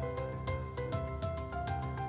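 Background music with a steady beat and a melody of short stepping notes over a bass line.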